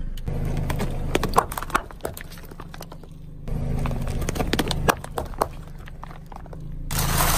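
Car tyre rolling slowly over plastic things and crushing them: a scatter of sharp cracks and pops over the car's low, steady engine running, in two runs split by a break, the second as plastic pudding cups burst under the tyre.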